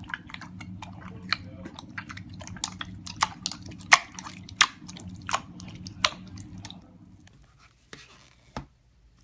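Slime being squeezed and worked by hand, making a quick run of sticky clicks and pops. The pops are loudest in the middle, thin out after about seven seconds, and end with one last pop near the end. A low steady hum sits under them and stops at about the same time.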